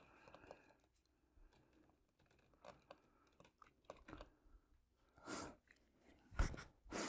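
Faint handling noises of a foam exhaust stack being pressed and rubbed against a foam model fuselage, its contact cement still wet. Three louder short scuffs come in the last couple of seconds.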